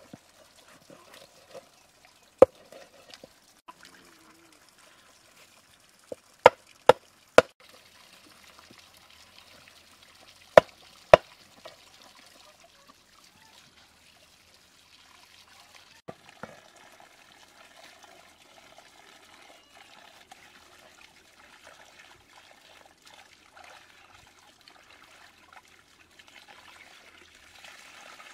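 Water pouring and trickling steadily from a spout onto stones, with about six sharp chops of a large knife cutting fish on a stone in the first twelve seconds. Near the end the water splashes louder as hands wash a pot under the stream.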